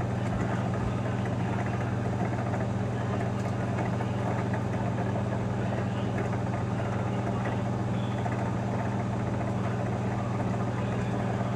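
Microwave oven running with a steady low hum while heating a bag of microwave popcorn.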